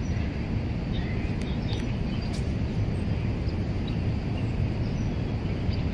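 Outdoor city-park ambience: a steady low rumble of background noise, with a few faint, short bird chirps above it.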